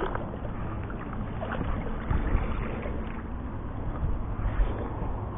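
Water splashing and sloshing at the side of a bass boat as a hooked black bass is drawn in and scooped into a landing net, with scattered small splashes over a steady low hum.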